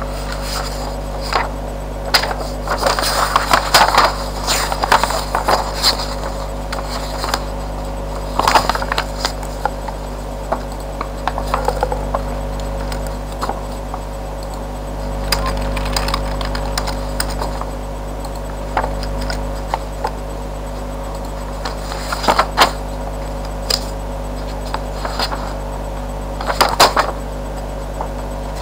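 A paper leaflet and a plastic headset being handled close to the microphone: irregular rustles, taps and light knocks, over a steady low electrical hum.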